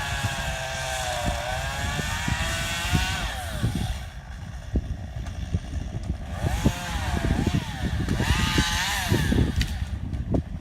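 Chainsaw running at high revs, its pitch sagging and recovering as it cuts, then dropping back about three and a half seconds in. It is revved again in two short bursts later on. A low rumble with scattered knocks runs underneath throughout.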